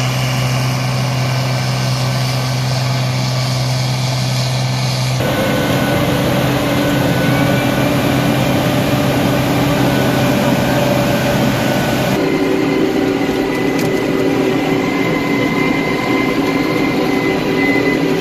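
Case IH 2022 cotton picker running: a steady drone of engine, picking units and air fans, its hum shifting abruptly in pitch twice.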